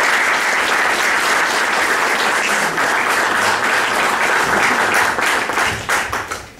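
Audience applauding: dense, steady clapping that thins out and stops near the end.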